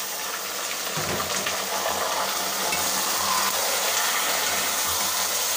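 Raw chicken pieces sizzling in hot oil with browned onions in a metal pot, stirred with a metal spoon as they start to brown. The sizzle grows a little louder about a second in, then holds steady.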